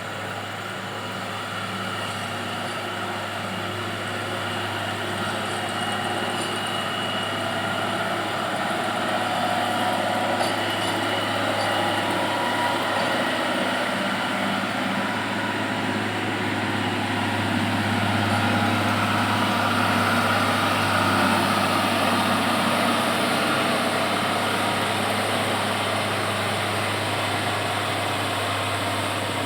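Komatsu GD 511A motor grader's diesel engine running steadily with a constant low hum, growing gradually louder over the first two-thirds and easing off a little near the end as the machine comes closer and passes.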